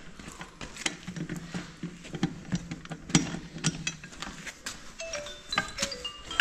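A long cranked socket wrench being spun on a wheel nut of a steel rim: irregular metallic clicking and rattling of the socket and bar. In the last second or so there are several short, clear metallic pings.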